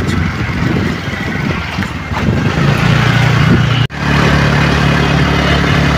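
Motorcycle engine running steadily while riding, with a rush of road and wind noise. The sound drops out for an instant about four seconds in, then the engine hum carries on, steadier.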